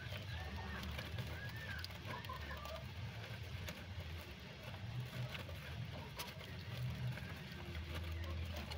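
Short bird chirps in the first two seconds or so over a steady low rumble, with faint scattered light clicks.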